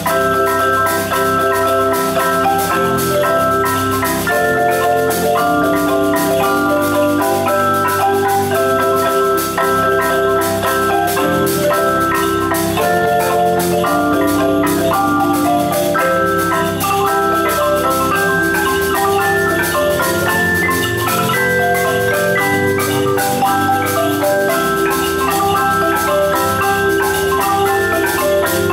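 Marimba ensemble playing a piece together: held chords in the low and middle range under a moving higher melody, with no break.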